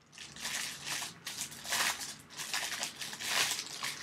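Plastic wrapping crinkling in irregular rustling bursts as a camera case is unwrapped by hand.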